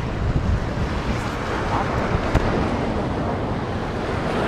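Wind buffeting the microphone over the wash of sea water, with a few sharp clicks, the loudest a little over two seconds in.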